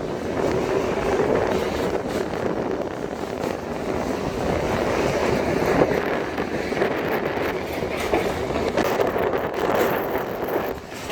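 A passenger train in motion: the steady rumble and rattle of the carriages and wheels running on the track.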